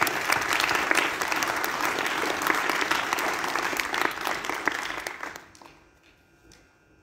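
Audience applauding: a dense round of clapping that dies away about five and a half seconds in.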